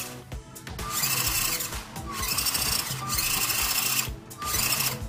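Brushed electric motor and gearbox of a WPL B-24 1/16 RC GAZ-66 truck whirring in a series of short throttle bursts, each under a second, with a high gear whine.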